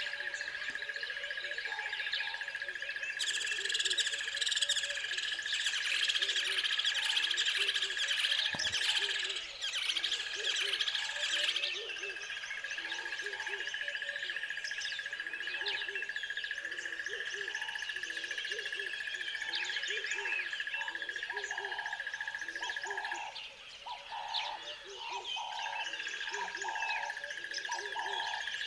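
Wild birds chirping and singing in chorus over a steady high-pitched drone, with short low hooting calls repeating.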